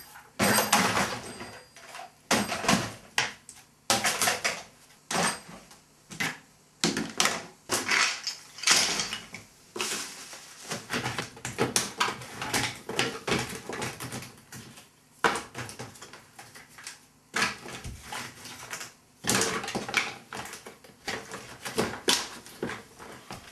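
Irregular knocking, clicking and rustling as paper scraps and small objects are picked up off a wooden floor and dropped into a canister.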